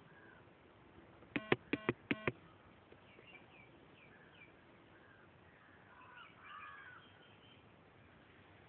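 Birds calling: three short, loud calls in quick succession about a second and a half in, then scattered faint chirps of small birds.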